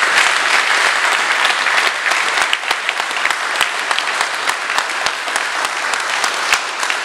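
A group of about twenty people applauding steadily, a dense run of hand claps.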